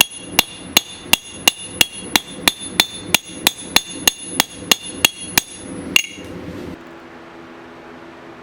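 Hand hammer forging a steel knife blank on an anvil, about three ringing strikes a second. The hammering stops about six seconds in, leaving a steady low hum.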